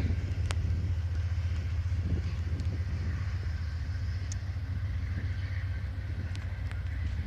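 Low, steady rumble of an Amtrak passenger train pulled by a single diesel locomotive as it sets off from the station and draws away, with a few faint clicks.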